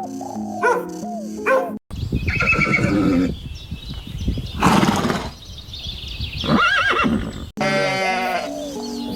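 A horse whinnying in several high, gliding calls, with a loud burst of noise between them. In the first couple of seconds, before a sudden cut, a dog barks a few times over background music. Near the end, after another cut, a different animal call starts over the music.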